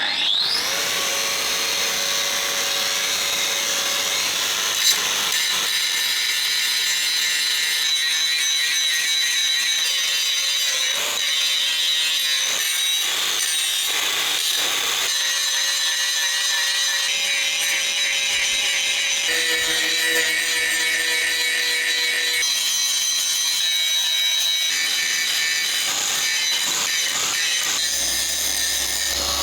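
Angle grinder spinning up, then grinding down raised steel around shell penetrations in a KV-1S tank turret's armour. It makes a steady high whine, and the tone shifts abruptly several times as the grinding changes.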